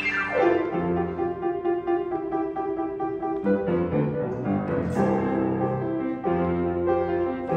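Solo piano playing a slow, sustained instrumental piece, opening with a fast run down the keyboard.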